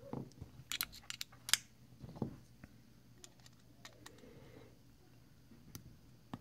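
A cluster of sharp clicks and taps as steel hex bits are handled and seated in a stubby bit screwdriver. After that, quieter scattered ticks and faint scraping as the driver turns a screw out of a folding knife's handle.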